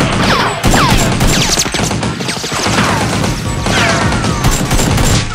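Dubbed action-film gunfire sound effects for a blaster fight: a run of shots and impacts, several followed by falling-pitch zings like ricochets, over background music.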